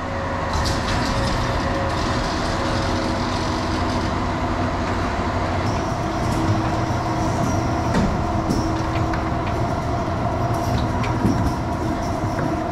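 A farm machine's engine running steadily, with a constant hum and a few faint clicks.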